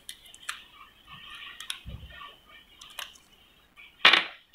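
Small clicks and scrapes of fingers working a battery out of the metal spring-clip holder of a wireless PIR motion sensor. A dull low knock comes about two seconds in, and a louder brief knock and rustle near the end.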